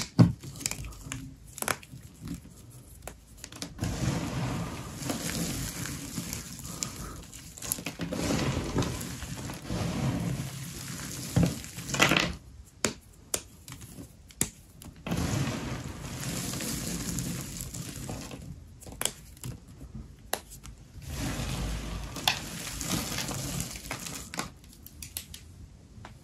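Dry soap being crushed, crunching and crackling in long stretches of a few seconds each, split by short pauses and sharp clicks.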